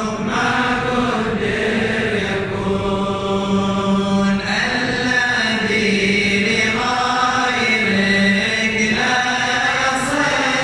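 A large group of men chanting an Arabic Sufi devotional poem aloud in unison, in a slow melody of long, drawn-out notes.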